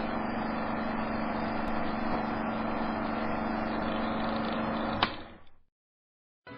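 Steady background noise with a constant low hum, ending with a sharp click about five seconds in and then dying away.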